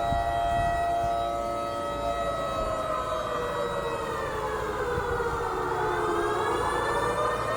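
Air-raid-style civil defence siren sounding the 10 pm lockdown curfew warning. It holds a steady wail for about two seconds, slides slowly down in pitch to a low point about six seconds in, then climbs back up near the end.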